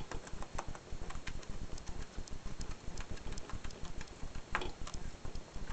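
Hamster gnawing on cardboard: a fast, irregular run of small crunching clicks as its teeth bite and tear the card, with one louder crack about four and a half seconds in.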